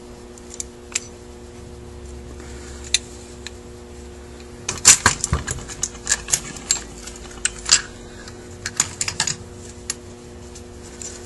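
Sharp clicks and light clatter of Quadrajet carburetor castings and small parts being handled on the bench, a few at first, then a busy run of taps in the middle, over a faint steady hum.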